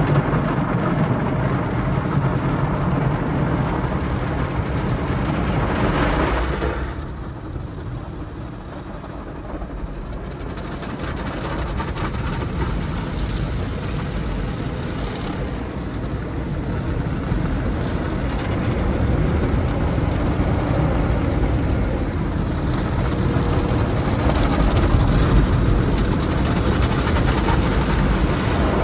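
Running machinery and water of an automatic tunnel car wash: a dense, steady wash of noise that drops away about seven seconds in and gradually swells again.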